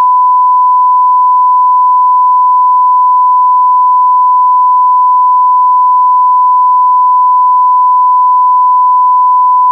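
A loud, unbroken pure tone at about 1 kHz: an edited-in bleep laid over the soundtrack in place of the speech.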